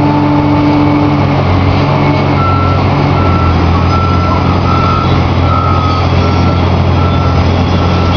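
Large tracked excavator's diesel engine running steadily under load, with a reversing alarm beeping at an even rate from about two and a half seconds in.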